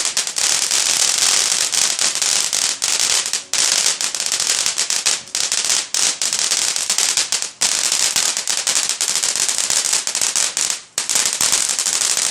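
Fireworks going off in a dense, rapid crackle of many small pops that runs almost without a break, pausing briefly a few times.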